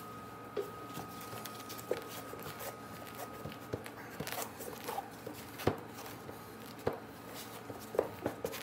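Steel notched trowel scraping and combing stiff, too-dry thinset mortar across a board, in scattered faint scrapes and clicks. The mortar is mixed on the dry side and hard to spread.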